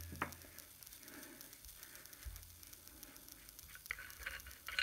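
Faint steady hiss and low hum of background noise, with a few small clicks and taps near the end as a metal end cap is unscrewed by hand from a Hatsan PCP air rifle's removable air cylinder.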